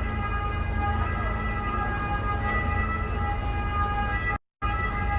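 Vaporetto water bus's engine running steadily under way: a low rumble with a whine of several steady high tones over it. The sound cuts out completely for a fraction of a second near the end.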